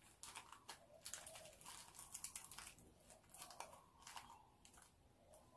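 Faint crinkling and rustling of wrapped snacks and plastic netting being handled, in many short scratchy strokes.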